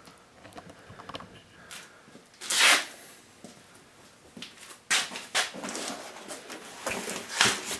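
Gear being handled on a cluttered metal workbench: a few light knocks, a short rustle a little after two seconds, then a run of clatters and rustling near the end.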